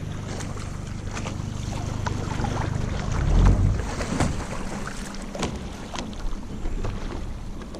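Wind buffeting the camera microphone as a kayak is paddled, with small waves lapping and splashing against its hull in short irregular slaps. A heavier gust or splash comes about three and a half seconds in, and the rumble eases over the last couple of seconds.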